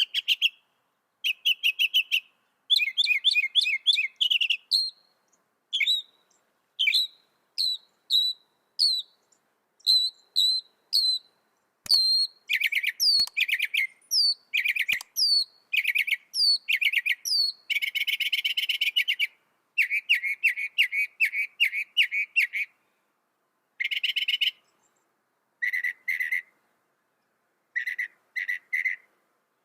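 Mockingbird singing, running through a string of different phrases and repeating each several times: rapid buzzy trills, then single sharp downslurred notes about once a second, then quick chattering runs.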